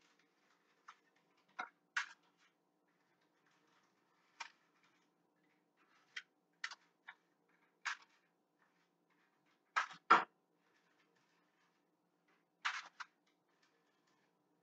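Scattered light clicks and clatters of kitchenware being handled at a counter: a dozen or so short knocks, the loudest pair about ten seconds in.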